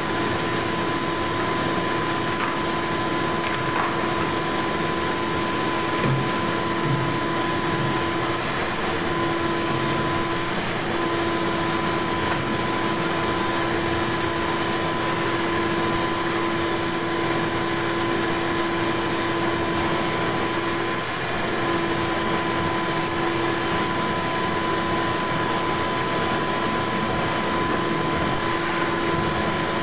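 Ridgid shop vacuum running steadily with a constant hum, its brush nozzle sucking dust and debris off a disassembled chainsaw. There is one sharp click about two seconds in.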